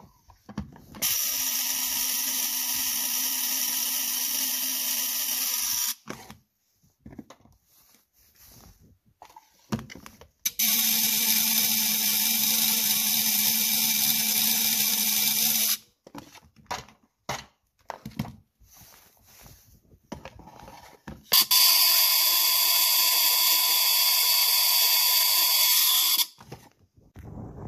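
Ford Model T trembler coil buzzing in a coil tester: three steady buzzes of about five seconds each, with short pauses and small clicks between. The buzz is the coil's vibrator points chattering as it fires, while its current draw is checked and adjusted.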